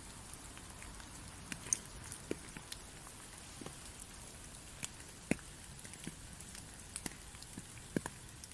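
Rain falling on wet leaves: a steady soft hiss with scattered louder single drops, one or two a second.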